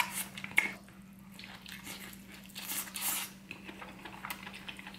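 Close-up wet eating sounds of a person biting and chewing king crab meat coated in cheese sauce, in a few short bursts, the loudest about three seconds in. A faint steady hum lies underneath.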